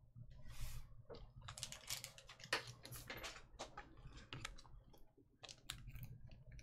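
A soft swish about half a second in, then quiet, irregular light clicks and taps, a few each second.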